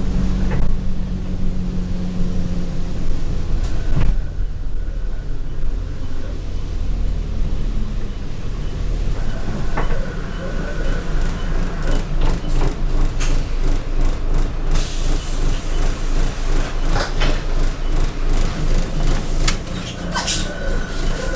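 Inside an Alexander Dennis Enviro200 single-deck bus on the move: the diesel engine runs with a high turbo whine that comes and goes. The body rattles, with many sharp rattles and knocks in the second half.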